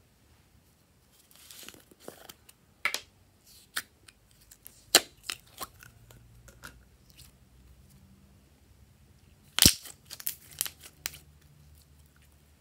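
Glossy slime being pulled up, stretched and folded by hand, giving irregular sharp sticky pops and crackles with quiet gaps between them. The loudest snap comes almost ten seconds in, followed by a quick cluster of pops.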